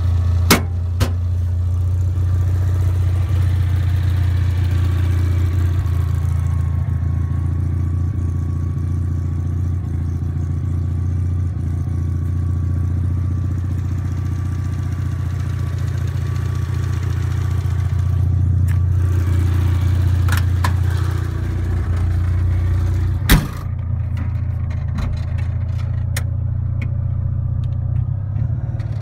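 Honda TN-V kei truck's 360cc two-cylinder engine idling steadily. A few sharp knocks sound over it, the loudest about 23 seconds in, after which the engine sounds more muffled.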